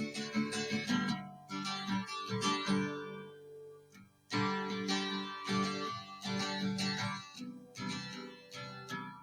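Background music: plucked and strummed acoustic guitar, with a short drop near the middle before it picks up again.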